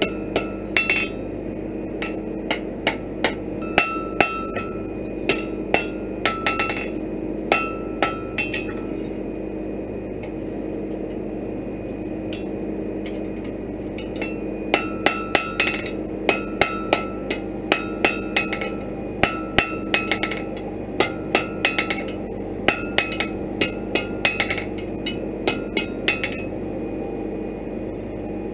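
Blacksmith's hand hammer striking an iron bar on an anvil, each blow ringing out, in quick runs of strikes. The hammering stops for about five seconds near the middle, then starts again and stops a couple of seconds before the end.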